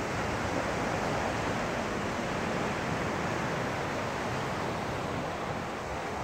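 Ocean surf washing steadily onto the beach, an even rushing hiss with no distinct wave crashes.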